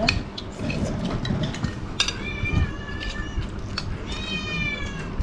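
A cat meowing twice: two long, drawn-out calls, the first about two seconds in and the second about four seconds in, over light clicks of spoons on plates.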